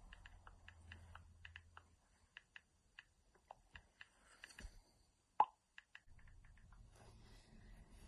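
Faint, irregular clicks of typing on a phone keyboard, with one short, louder pop about five and a half seconds in.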